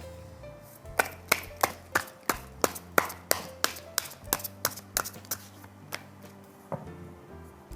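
Tarot cards being handled on a table: a run of about fifteen sharp card snaps, evenly spaced about three a second, then one more near the end.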